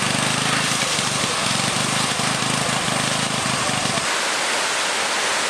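Steady rushing of fast-flowing floodwater, with a low hum underneath that stops about four seconds in.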